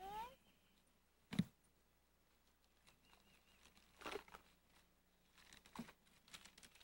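Mostly near silence, broken by a brief rising squeak at the very start, a single sharp knock about a second and a half in, and short bursts of rustling and crinkling as a child rummages through a wicker Easter basket of wrapped candy and small gifts.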